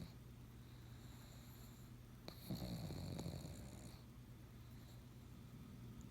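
Pug snoring in its sleep: one long snore about two seconds in, lasting about a second and a half, then quiet breathing until the next.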